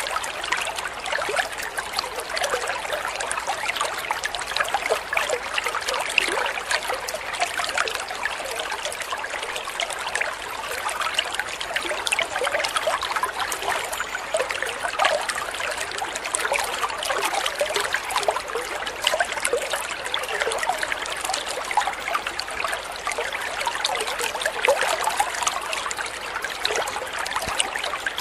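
Water trickling and splashing steadily as a small spout pours into a koi pond, a continuous stream of many small splashes.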